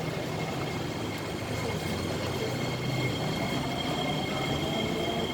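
SMRT C151A metro train running on the line: a steady rumble with a faint, steady high whine, growing slightly louder about three seconds in.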